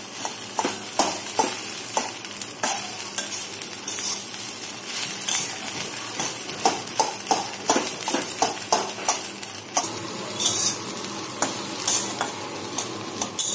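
Metal spatula stirring and scraping bread cubes and egg around a stainless steel kadai, with irregular scrapes and taps against the pan over a steady sizzle of frying in oil.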